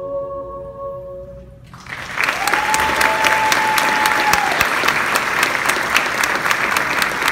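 The final held note of a choral song dies away, and about two seconds in an audience breaks into loud applause, with one long whistle among the clapping.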